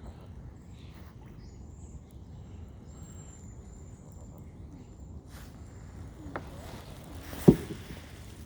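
Steady low outdoor rumble of wind and water, with a faint thin high-pitched call held for several seconds. A sharp knock sounds near the end and is the loudest thing.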